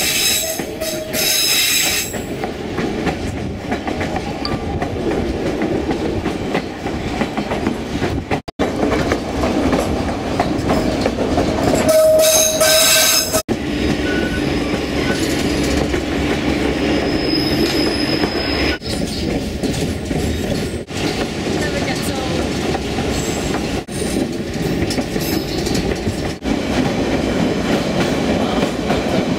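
White Pass & Yukon Route passenger train running on its narrow-gauge track, heard from aboard: steady rumble with wheels clacking over rail joints. The sound is made of several clips cut together, with a brief steady tone about twelve seconds in.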